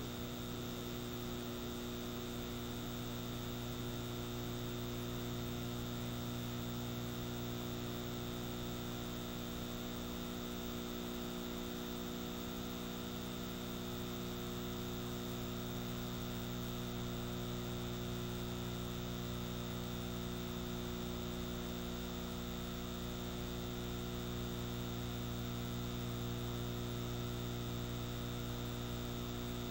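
Steady electrical mains hum with buzzing overtones and a faint hiss, and no programme sound: the blank gap in a recorded TV broadcast.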